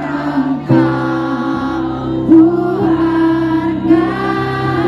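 A woman singing a slow song into a stage microphone over a musical accompaniment, holding long sustained notes.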